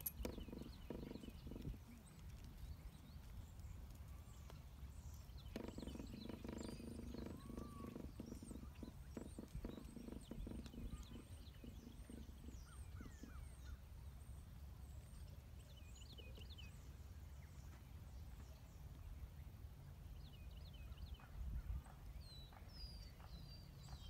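Outdoor ambience: a low rumble of wind on the microphone, with small birds chirping on and off. A steady low hum comes in about five seconds in and fades after several seconds.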